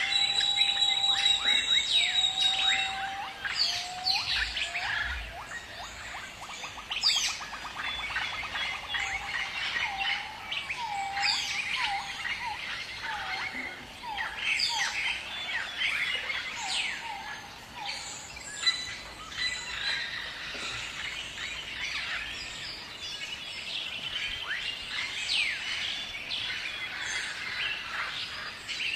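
Birds calling in a busy chorus: repeated short whistled notes that dip and rise, mixed with many quick downward-sweeping chirps.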